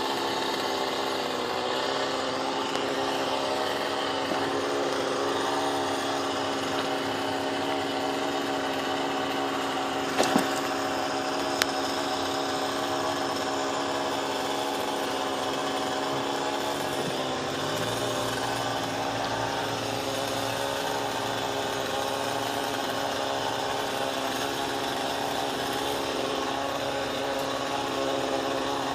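Chainsaw engine running steadily at a fairly even pitch, with two sharp knocks about ten and eleven and a half seconds in.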